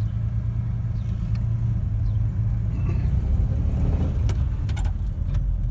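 1946 Hudson Commodore's straight-six flathead engine pulling away in first gear, a steady low drone that builds slightly. A few sharp clicks sound about four to five seconds in.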